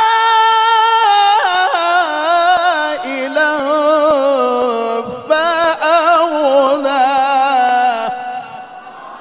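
A man's solo voice reciting the Qur'an in melodic tilawah style into a microphone. He holds long notes with a quavering vibrato and winding ornaments. The phrase ends about eight seconds in and leaves a fading echo.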